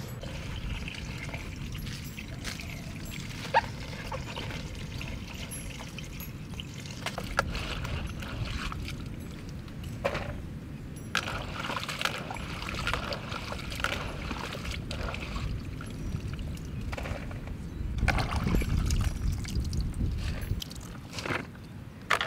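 Chopped cauliflower, carrot and celery being mixed by hand in a plastic basin, with wet rustling and water splashing and trickling, over a steady low rumble.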